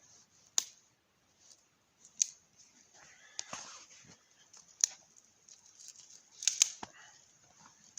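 A handful of sharp, separate clicks and knocks, with a short rustle a little over three seconds in, as small objects are handled and set down.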